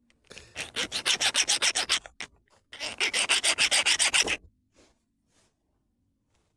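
A round chainsaw file drawn quickly back and forth across a gemstone in a hardness test: two runs of rapid rasping strokes, about eight a second, with a short pause between them.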